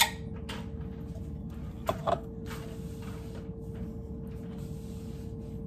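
Tin cans and kitchenware being handled on a counter: a sharp click at the start and two short knocks about two seconds in, over a steady hum.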